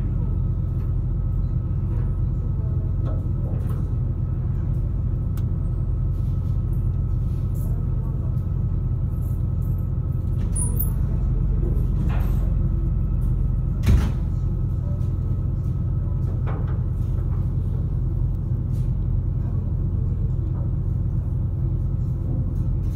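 Steady low rumble of a ferry's engines heard from on board, with a faint steady hum above it. A few short knocks break in, the loudest a single sharp one about fourteen seconds in.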